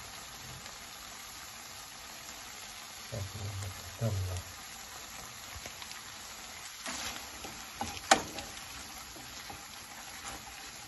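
Shrimp and vegetables sizzling steadily as they fry in a pan, with a wooden spatula stirring and scraping against the pan a few times, the sharpest stroke about eight seconds in.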